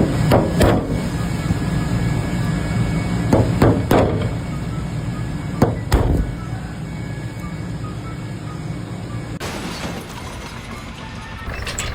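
A low machine rumble with several sharp knocks and impacts, which come in close pairs in the first six seconds.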